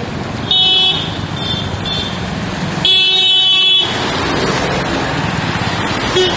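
Road traffic on a rain-wet city road, a steady wash of noise, with car horns honking over it: a short blast about half a second in, two quick toots, a longer blast lasting about a second around three seconds in, and a brief toot near the end.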